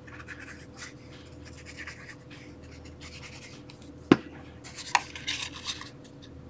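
Cardstock rustling and scratching as a small scored paper box is glued and its sides folded up, with a sharp click about four seconds in and a short flurry of handling after it.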